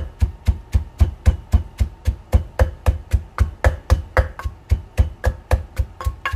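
Pestle pounding shallots and chillies in a mortar, a steady run of thuds about four a second, working them into a fine paste.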